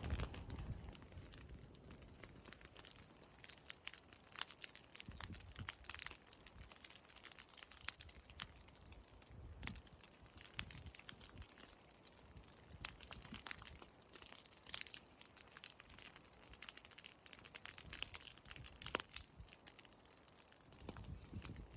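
A burning pile of straw and dry leaves crackling, with irregular sharp pops and snaps scattered throughout.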